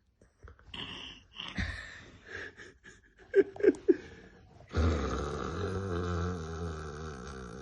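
A person snoring: after a few short scattered sounds, including three short loud ones about three and a half seconds in, a long, rough snore starts about five seconds in and holds.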